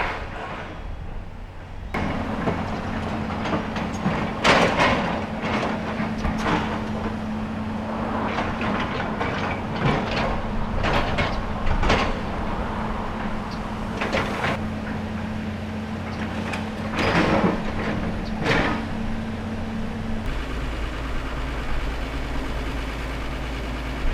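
Demolition machinery working on a building: a steady engine hum with repeated crashes and scrapes of breaking debris.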